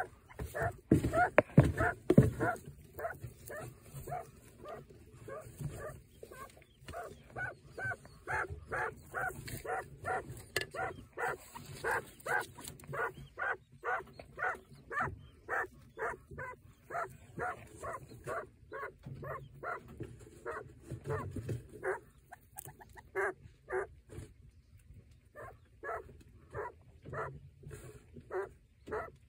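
Broody quail hen grumbling and growling in short, regular calls, about two a second, with a brief pause near the end. It is her defensive call, given because she is sitting on her chick and eggs and feels threatened by a person too close to the nest. A louder, rougher noise fills the first two seconds.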